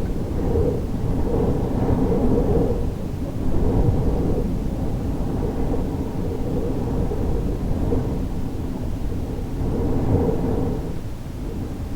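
Wind forcing through the gap of a window that doesn't seal: a low rushing rumble that swells and eases in gusts, with a moaning tone that rises in the first few seconds and again about ten seconds in.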